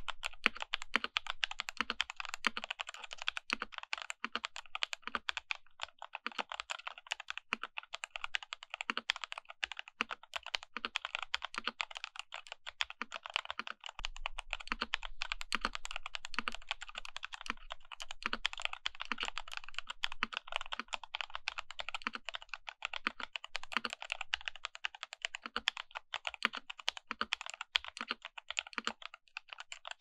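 Continuous fast typing on a CIY Tester 68 65% mechanical keyboard fitted with stock, unlubricated Jwick Ultimate Black switches and DSA keycaps, with added PE foam in the case and on the PCB. Dense key strokes run throughout, with a deeper stroke about once a second.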